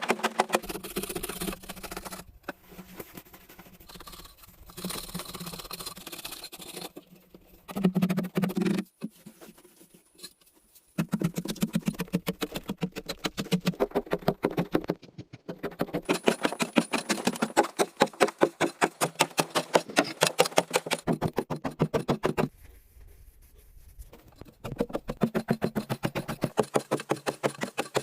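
Rapid, regular scraping and knocking strokes, several a second, in long runs broken by two short pauses.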